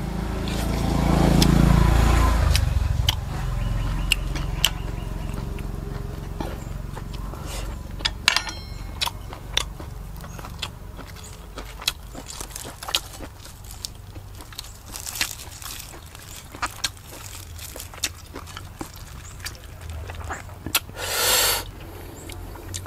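Close-miked eating sounds: chewing, lip smacks and many small sharp clicks as grilled fish and raw vegetables are eaten. A low rumble swells and fades over the first few seconds, and a short rustling hiss comes near the end.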